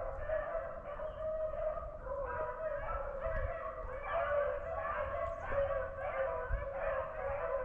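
A pack of beagles baying continuously while running a rabbit, several dogs calling over one another.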